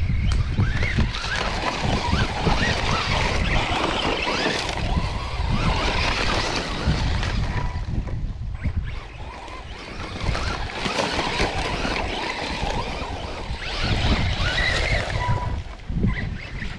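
Arrma Senton 3S radio-controlled short-course truck driving on sand, its brushless electric motor whining and its tyres churning sand. The sound surges and eases over several runs, with wind rumbling on the microphone.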